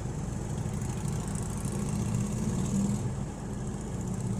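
Motor vehicle engine idling steadily, a low even hum.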